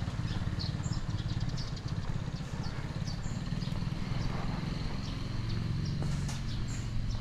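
A small motorbike engine running steadily close by, with birds chirping in short high notes over it.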